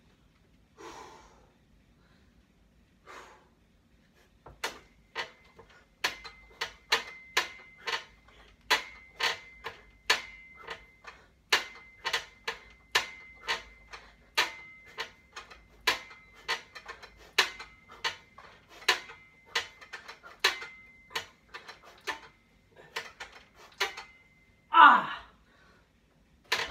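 Metal frame of a home pull-up power tower clicking and knocking sharply with each swing of a set of kipping pull-ups, about two to three clicks a second, over a faint steady high ring. Near the end the set finishes with a loud, falling exhale.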